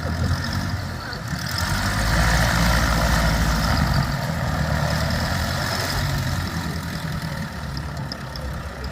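Aeronca O-58B Grasshopper's small piston engine and propeller running at low power as the plane comes in to land, growing louder about two seconds in and then slowly fading.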